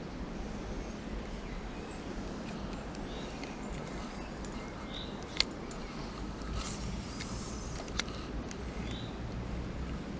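Two sharp clicks from handling a spinning reel, the louder one about halfway through and a second a few seconds later, with a short hiss between them. A small bird gives a brief chirp every couple of seconds over a steady low background rumble.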